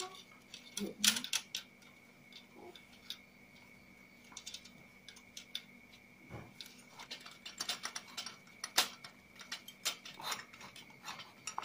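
Small metal clicks and taps of bolts, washers and nuts being fitted and tightened on the aluminium frame of a UHF digital TV antenna, irregular and sparse at first, then coming more quickly in the second half.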